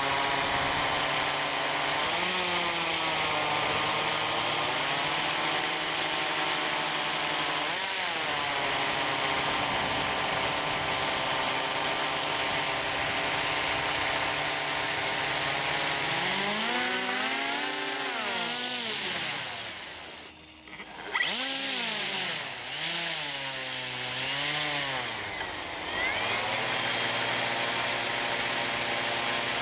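The RC camera blimp's propeller motors running close to the microphone, a steady buzzing drone. About halfway through the pitch starts swinging up and down with throttle changes, dies away briefly about two-thirds of the way in, then surges back and settles steady again.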